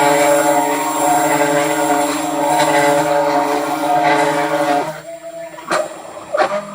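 Motors of a 3D-printed CNC mill running with a steady, pitched hum. The hum stops about five seconds in, two sharp clicks follow, and a steady tone at a higher pitch starts near the end.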